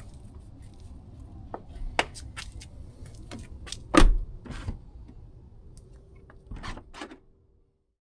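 Tesla Model S rear door handle and latch clicking as the handle is pulled, with a loud clunk about four seconds in as the rear door unlatches. The latch is working again after a repair of broken wires in the door wiring harness.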